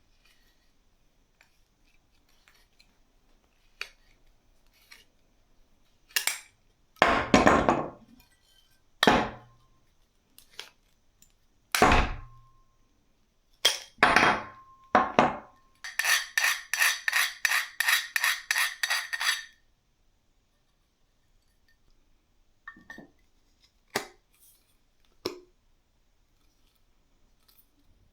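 Metal hardware and tools being handled: scattered knocks and clinks, some ringing briefly. Partway through comes a run of about a dozen even metallic clicks, roughly four a second, like a ratchet or a part being turned.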